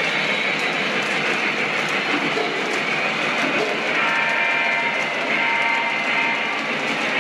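Lionel O-gauge model trains running on the layout's track: a steady rolling noise from the passing freight cars' wheels, with a faint high whine joining about four seconds in.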